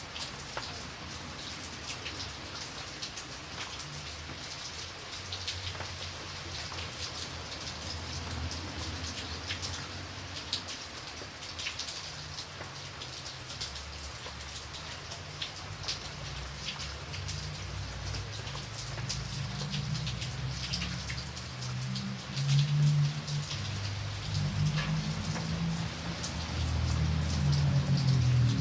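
Light rain falling steadily, with many separate drops ticking. In the second half a low rumble builds beneath it and is loudest near the end.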